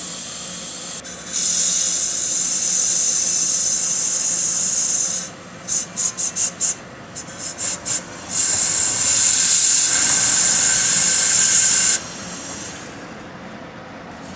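Compressed-air blow gun hissing into an ATV engine's oil passages during an oil flush: a long blast, then about eight short bursts, then another long blast that cuts off near the end.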